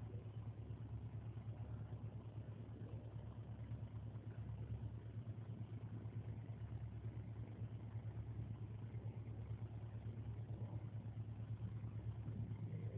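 Steady low machine hum, unchanging throughout, with nothing else standing out.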